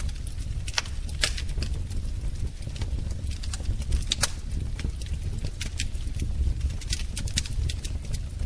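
Wood fire crackling in a fireplace: irregular sharp snaps and pops, a few each second, over a steady low rumble.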